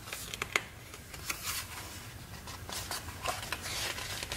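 Pages of a hardcover picture book being turned by hand: several short paper rustles and flaps.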